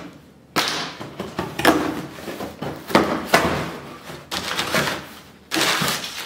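Cardboard box flaps being pulled open and crumpled packing paper rustling and crinkling as it is lifted out, in several separate bursts.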